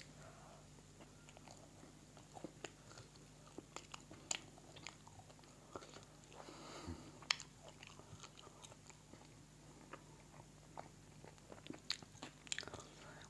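A man biting into a slice of kabab crust pizza and chewing it, with faint, irregular wet clicks and crunches from the mouth.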